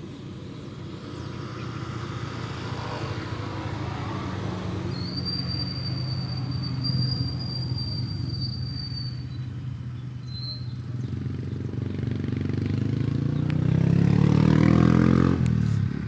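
Motorcycle engines running along a road. One grows louder and rises in pitch as it comes close near the end. A high steady whistling tone sounds for a few seconds in the middle.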